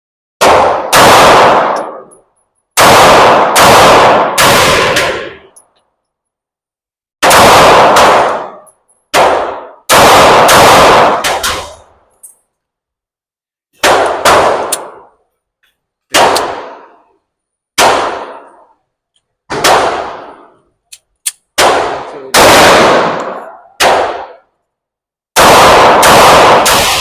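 Handgun shots fired in a slow, uneven string of single shots and quick pairs as two magazines are emptied. Each very loud crack rings on for a second or two in the echoing indoor range.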